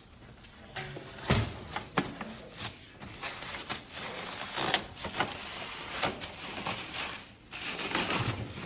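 Clear plastic wrapping rustling and crinkling as it is handled and pulled off a coffee machine, with a dull thump about a second in and scattered sharp clicks and knocks.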